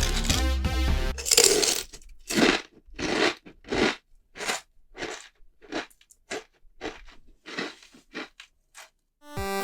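Pringles potato crisps being crunched and chewed, close up: a string of crisp crunches, irregular, about one or two a second, growing shorter and fainter as the crisp is chewed down. A bit of music plays at the start and comes back near the end.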